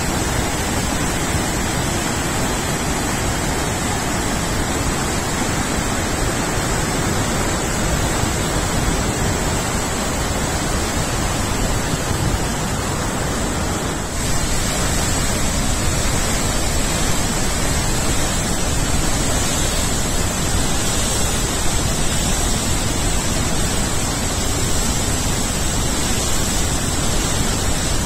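Steady roar of rushing water from the Murchison Falls waterfall, even and unbroken, with a thin high hiss over it. It gets a little louder about halfway through.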